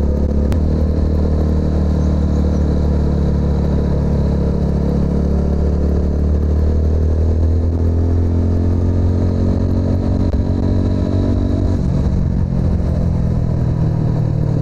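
Single-cylinder engine of a TVS Apache RTR 200 running under way, its exhaust note rising slowly, with a sharp click about half a second in. The note changes abruptly about twelve seconds in.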